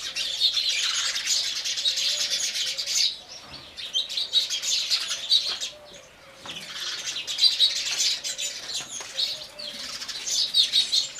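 A flock of house sparrows chirping, many short calls overlapping into a continuous chatter, with brief lulls about three and six seconds in.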